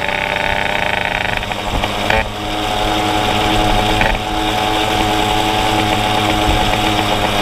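Small moped engine running hard under way, a buzzy drone whose note breaks and drops about two seconds in and shifts again about four seconds in, then climbs back up.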